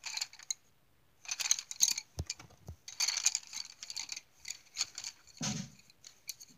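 Coloured pencils clicking and clattering against one another as a hand sorts through them, in several short bursts with a couple of soft knocks between.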